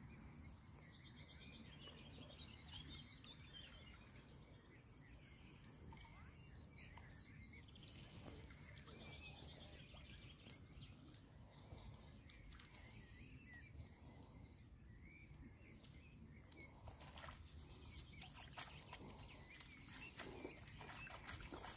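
Very quiet lakeside ambience with faint, scattered bird chirps and short high trills. Near the end comes a run of soft clicks and taps.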